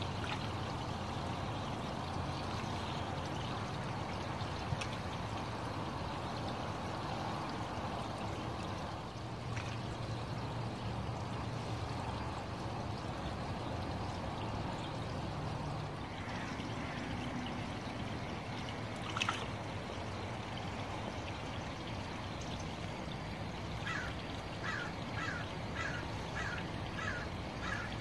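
Steady trickling and splashing of water running into a garden pond. Near the end, a run of short chirps repeats about twice a second.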